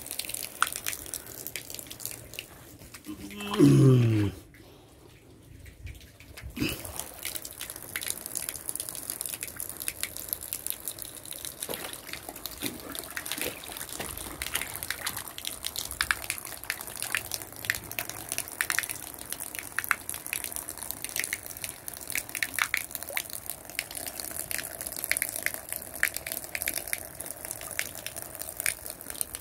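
Shallow water trickling and splashing in a nearly drained, plastic-lined fish tank, a steady crackle of small splashes. About three and a half seconds in comes a brief loud sound sliding down in pitch, then a couple of seconds of much quieter sound.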